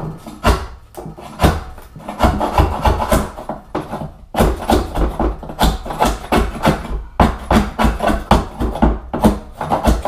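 Cork underlayment glued down with Titebond II being scraped and chipped off a plywood subfloor with a hand tool, in quick repeated rasping strokes with a short pause about four seconds in. The cork comes up friable and sounds crunchy as it breaks away.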